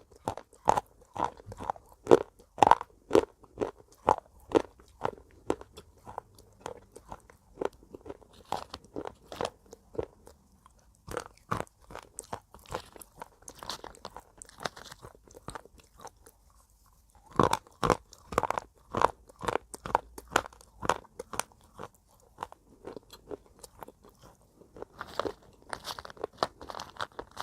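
Pieces of broken slate pencil being chewed, a steady run of sharp crunches about two to three a second, with a short pause past the middle before the crunching resumes.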